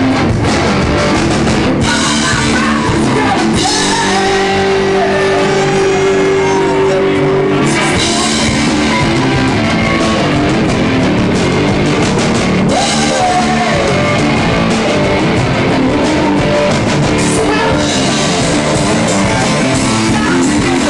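Loud rock music with drums, guitar and singing.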